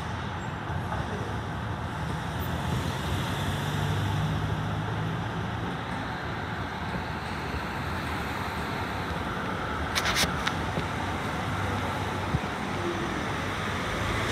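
Steady city street traffic noise as an A-class tram approaches along the tracks and draws level near the end. A low engine hum sits under it in the first half, and a short cluster of sharp clicks comes about ten seconds in.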